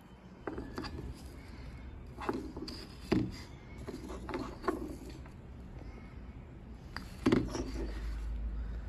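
Bamboo-backed beard brushes being handled on a wooden tabletop: an irregular series of wood-on-wood knocks and clacks as they are turned over and set down, the loudest about three seconds in and near the end.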